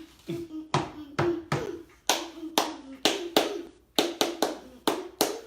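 Hands tapping or slapping out a quick rhythm, about a dozen sharp strikes, while a voice hums a low tone along with the beat.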